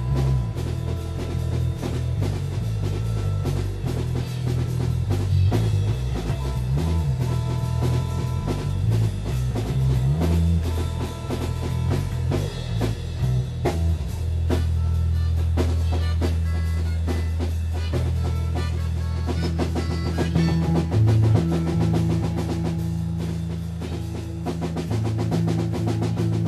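Instrumental funk-rock jam of electric bass and drum kit: a busy bass line over a steady groove of kick, snare and cymbals. The bass holds one long low note about halfway through, and the drums play denser fills near the end.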